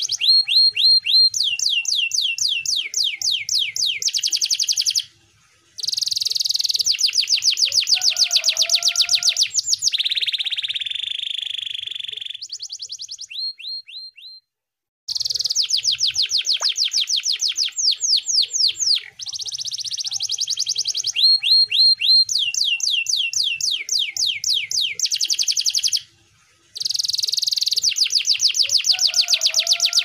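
Domestic canary singing a long run of fast trills: each phrase is a rapid string of identical notes, and the phrases change every second or two. The song breaks off briefly three times, about five, fourteen and twenty-six seconds in.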